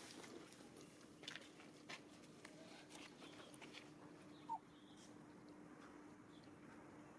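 Faint scattered clicks and a low steady hum, with one short, falling squeak about four and a half seconds in: a baby macaque's cry.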